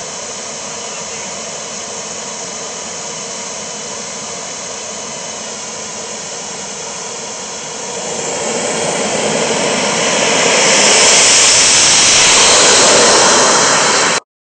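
The four Booster 160+ model jet turbines of a 1:4 scale RC F-16 run steadily with a hissing whine. About eight seconds in they spool up to full thrust for the takeoff roll, growing louder and brighter. The sound cuts off abruptly just before the end.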